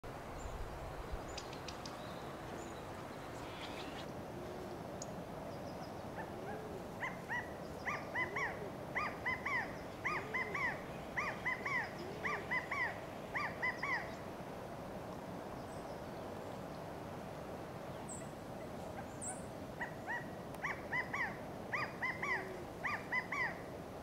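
Male California quail giving contact calls: quick series of short, arched notes in two bouts, the first running for several seconds and the second starting near the end.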